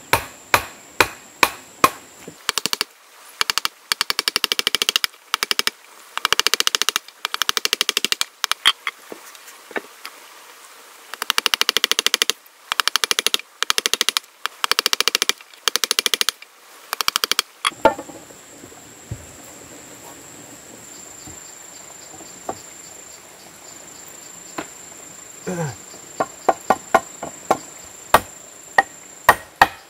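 Hammer driving a wood chisel into a timber to cut a mortise. First come single blows, then long fast runs of blows in bursts of about a second each. After a pause with a steady high insect drone, a series of separate hammer taps comes near the end.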